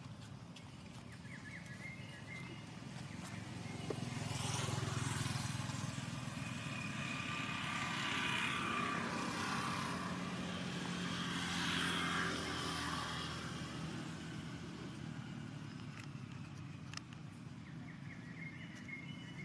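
A motor vehicle passing by: engine and tyre noise builds from about four seconds in, stays up for several seconds and fades away.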